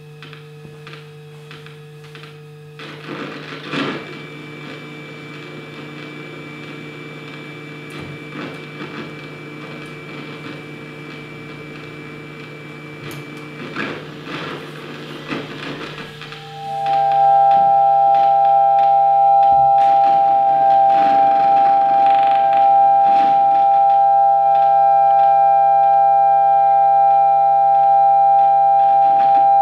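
Experimental electroacoustic music for clarinet, prepared zither and electronics. A steady low hum runs under scattered clicks and scratchy textures with a thin high held tone. A little past halfway, a loud sustained pair of close, high tones comes in and is held.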